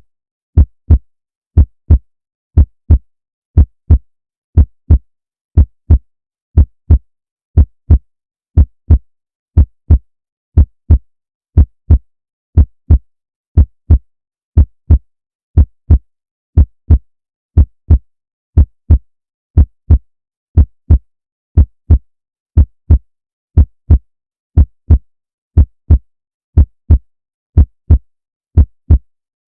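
Heartbeat, each beat a pair of low thumps (lub-dub), repeating steadily at about one beat a second.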